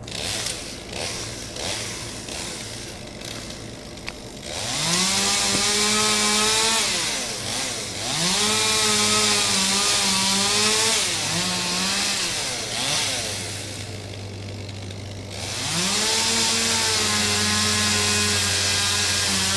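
Two-stroke chainsaw idling, then run up to full throttle three times in long cutting bursts, each starting with a rising whine. Between bursts it drops back to a low idle.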